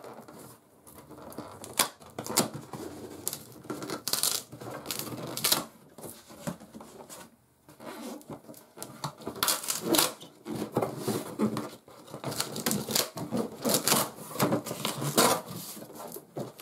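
Cardboard box being opened by hand: the taped top flaps are pulled apart and folded back, giving irregular scraping, rustling and sharp crackling of cardboard and tape.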